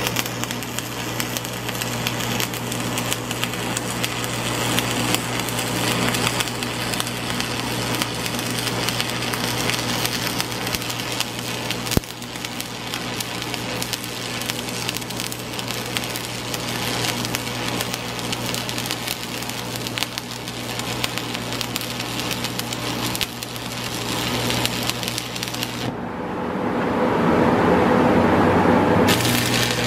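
Electric arc welding on a steel base: the arc crackles and sizzles continuously over a steady electrical hum. The crackle stops a few seconds before the end as the arc is broken.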